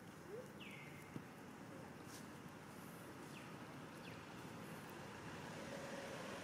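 Faint outdoor background hiss with a few short, faint chirps, one falling in pitch about half a second in, and a soft click about a second in.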